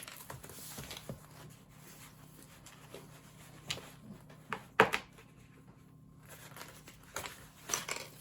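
Handling noises on a work surface: soft rustling with scattered light knocks and clicks, a sharper knock about five seconds in and a few more near the end.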